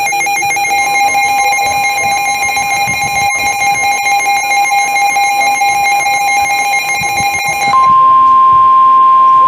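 Emergency Alert System attention tone from a NOAA Weather Radio broadcast, signalling an incoming severe thunderstorm warning. A steady electronic tone is joined by a second, higher tone about a second in. Near the end it switches to a single louder, higher tone.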